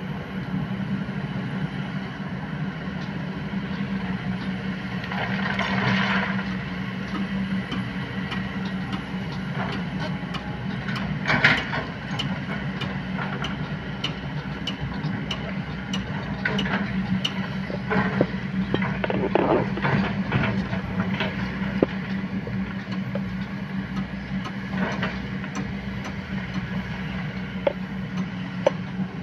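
Kobelco hydraulic excavators' diesel engines running steadily while digging, with the buckets scraping and knocking against rocks and soil in scattered clunks and clatters; the sharpest knock comes just past the middle of the first half, and a longer rattle of stones comes about two-thirds of the way through.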